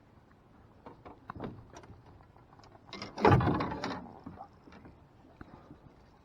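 A series of light clicks and knocks, then a louder, longer clatter about three seconds in, like gear being handled.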